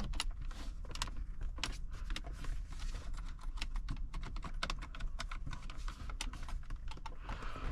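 Irregular light clicks and taps of plastic dashboard parts being handled and pressed into place by hand.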